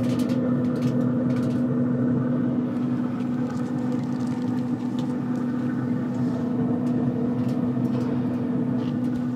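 Traeger pellet grill running with a steady electric hum, one strong pitch with overtones, from its fan, at cooking temperature. A few light clicks sound as the steaks are laid on the metal grate.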